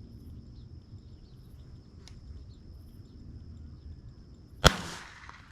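A single shotgun shot, sharp and loud, about three-quarters of the way through, fired at a passing dove over quiet field ambience.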